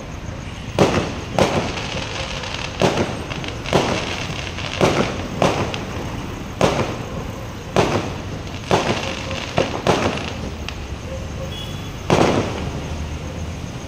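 Aerial fireworks bursting overhead in a steady volley: about a dozen sharp bangs roughly a second apart, each trailing off in an echo, with a short pause and then a longer burst near the end.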